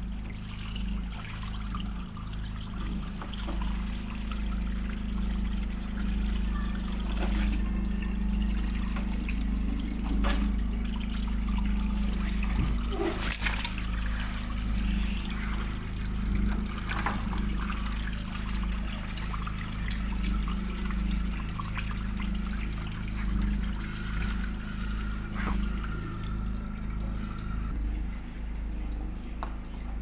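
Water trickling and splashing out of a Siemens front-loading washing machine's opened drain-pump filter onto a tiled floor as the filter is worked loose. A steady low hum runs underneath, with a few sharp clicks from handling the filter.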